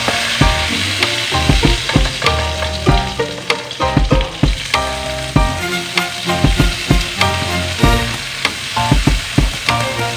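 Chicken pieces sizzling as they fry in a hot pan while being stirred, with frequent sharp clicks of a utensil against the pan.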